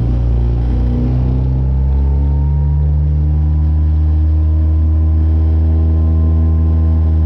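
Small boat's outboard motor running under way, its note shifting a little in the first two seconds and then holding steady.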